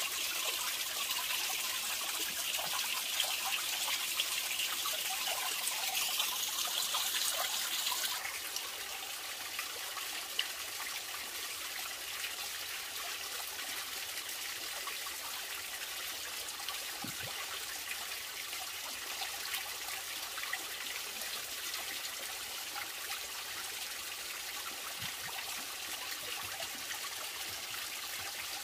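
Water from a small stream trickling over rocks, a steady even sound; it is louder and hissier for the first eight seconds or so, then settles to a softer trickle.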